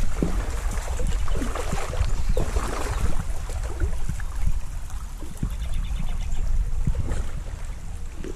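Flowing river water splashing and gurgling, with wind rumbling on the microphone underneath.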